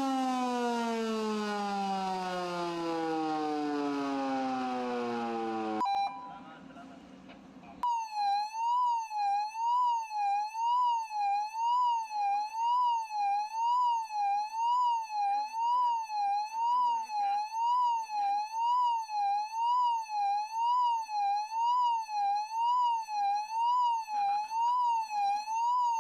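A siren's tone falls steadily in pitch for about six seconds and then cuts off. After a short pause a siren starts a fast, even up-and-down sweep, about one and a half rises and falls a second, that runs on steadily.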